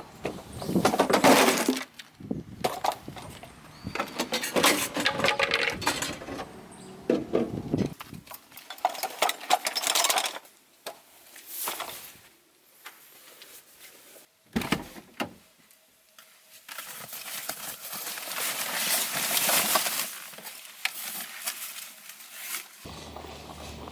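Camping gear being handled: rustling, knocks and light clinks in separate spells with quiet gaps between them.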